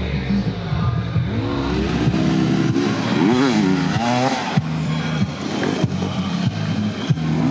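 Enduro dirt bike engines revving, their pitch rising and falling again and again, with background music.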